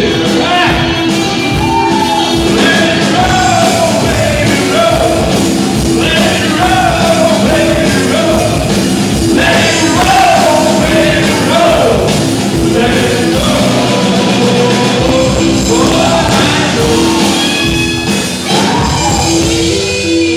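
Rock band playing a song with a singer, loud, with a steady beat and a sung melody.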